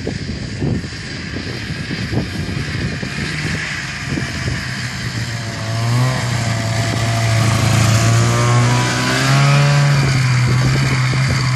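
Snowmobile engine approaching and passing close by, growing loud from about halfway through, its pitch wavering with the throttle.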